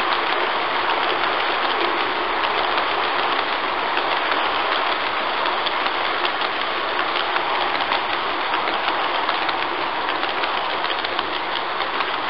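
G-scale model train cars rolling past close by on their track: a steady rolling rattle of the wheels with many quick clicks, easing slightly near the end as the last car goes by.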